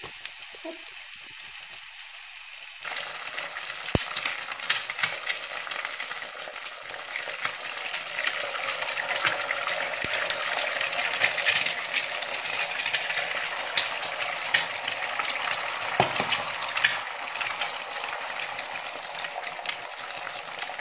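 Eggs sizzling and crackling in hot oil in a frying pan, much louder from about three seconds in. Two sharp knocks, about four seconds in and again near sixteen seconds, as eggs are cracked into the pan.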